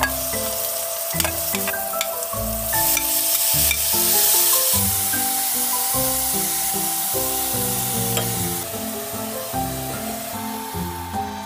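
Broccoli and carrots sizzling as they are stir-fried in a hot wok, with a metal ladle clicking against the pan now and then. The sizzle is loudest a few seconds in and eases off later.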